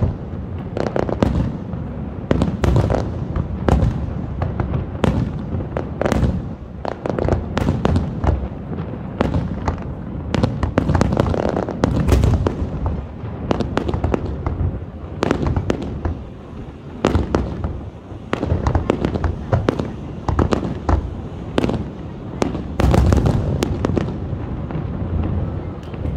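Low- and mid-altitude fireworks going off in a dense, continuous barrage: many sharp bangs and cracks, several a second, over a steady low rumble.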